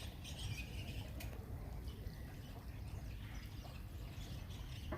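Small birds chirping here and there over a steady low rumble.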